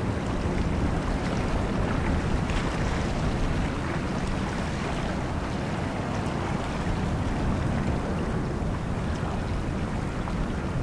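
Steady low rumble of a distant Boeing 777-200's jet engines as the airliner lands and rolls out, mixed with wind buffeting the microphone.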